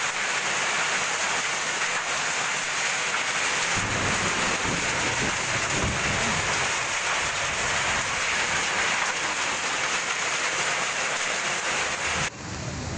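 Heavy hailstorm: hail and heavy rain falling on a metal-sheet roof, a dense, steady hiss. A low rumble comes in about four seconds in, and the sound drops abruptly near the end.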